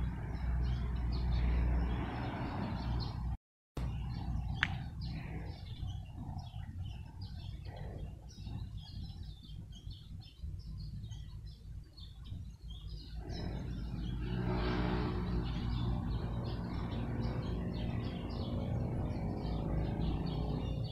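Small birds chirping repeatedly in the trees over a steady low outdoor rumble, which grows louder again in the second half. The sound cuts out completely for a split second a few seconds in.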